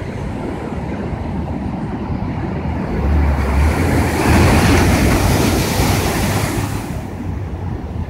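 Heavy ocean surf breaking on a rock seawall. A big wave crashes and hisses across the rocks from about three seconds in, is loudest in the middle and eases near the end, with wind buffeting the microphone.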